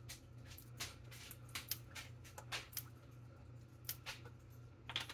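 Plastic squeeze bottle of barbecue sauce being squeezed out over a bowl: faint scattered crackles and clicks from the bottle as the thick sauce comes out, over a low steady hum.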